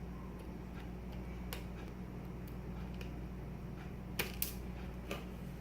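Scattered small, sharp clicks and ticks of a small screwdriver and tiny screws against a laptop's plastic lid and screen panel, with two louder clicks close together about four seconds in, over a steady low hum.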